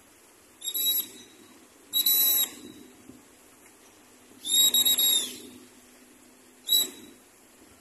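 A hand whistle blown in four blasts: a short one, a longer one, a long one of about a second, and a very short one near the end. These are high, steady whistle tones.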